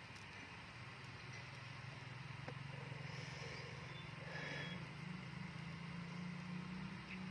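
A small engine runs steadily in the distance, its hum slowly rising in pitch and getting a little louder.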